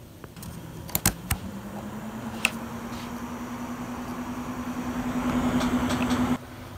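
AC Infinity dual cooling fans switched up from low to high speed: a few sharp clicks about a second in, then a steady hum that slowly rises in pitch as the rush of air grows louder, cutting off suddenly near the end.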